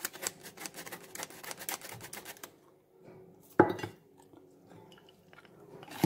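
Flour sifter working over a bowl of cake batter: a fast run of sharp clicks for about two and a half seconds, then a single loud knock about three and a half seconds in.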